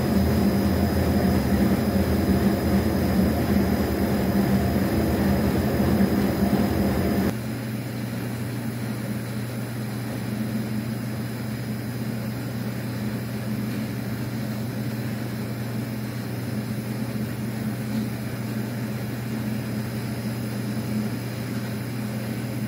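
Spiral feeder (flexible screw conveyor) running steadily, its drive motor humming as the auger draws granular material down out of the hopper. The steady hum drops abruptly to a quieter level about seven seconds in.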